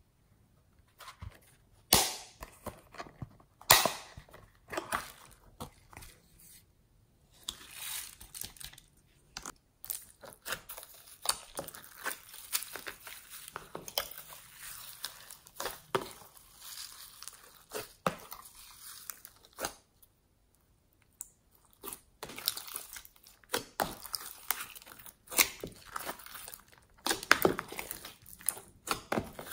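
Sticky slime being squished and folded by hand in a plastic tub, mixed with foam beads and sprinkles: a string of crackles, pops and crunches. The sharpest pops come about 2 and 4 seconds in, and there is a short lull about two-thirds of the way through.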